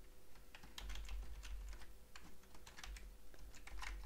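Typing on a computer keyboard: a quick, irregular run of keystrokes, over a steady low hum.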